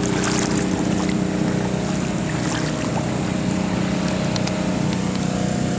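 A small engine running steadily at constant speed.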